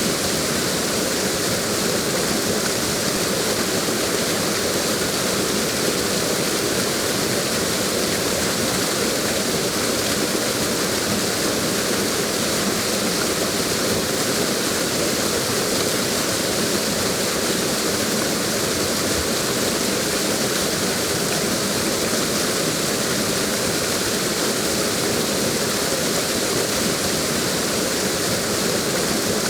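Waterfall: a steady, unbroken rush of falling water, a constant full hiss with no change in level.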